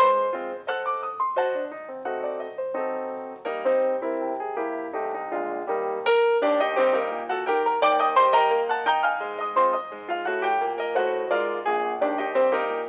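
Background solo piano music, a ragtime piece played briskly with many quick notes.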